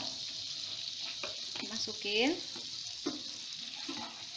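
Sliced onions sizzling in melted margarine in a frying pan, with a wooden spatula scraping and stirring through them in short strokes.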